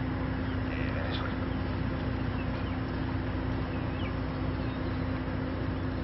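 Steady outdoor background noise with a constant low hum, and a few faint, short bird chirps.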